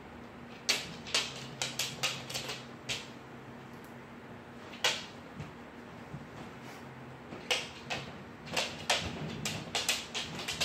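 Clusters of sharp, irregular clicks over a steady low hum: a handful about a second in, a single one near the middle, and a quicker run in the last few seconds.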